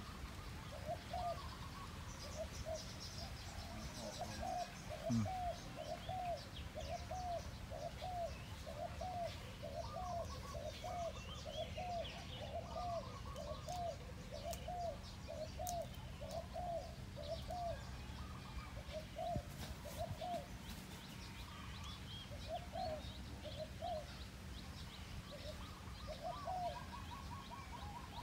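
Spotted dove cooing over and over in short repeated notes, about one and a half a second, growing sparser with gaps in the second half. Small birds chirp faintly higher up.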